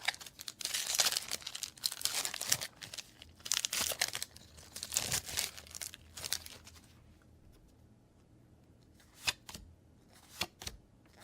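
A foil trading-card booster pack being torn open and its wrapper crinkled, in repeated bursts of rustling for about seven seconds, then a few sharp clicks near the end.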